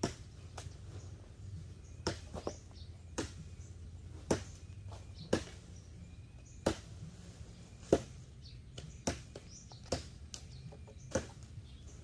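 Machete chopping into cut branches: about a dozen sharp strikes, roughly one a second, the loudest near the middle.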